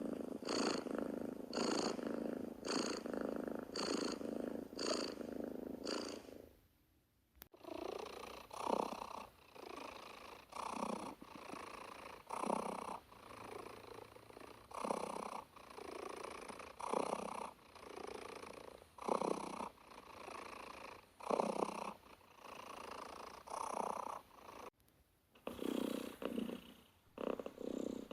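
Domestic cat purring, rising and falling with each breath: quick, even pulses at first, then after a sudden cut a slower purr that swells about every two seconds, with another cut near the end.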